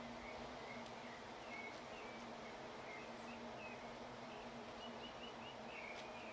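Faint outdoor ambience: small birds giving a run of short, high chirps over a steady low hum, with one sharp click at the very end.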